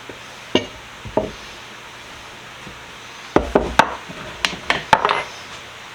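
Restored Craftsman 14-inch pipe wrench being handled: two separate knocks, then a quick run of knocks and clacks in the second half.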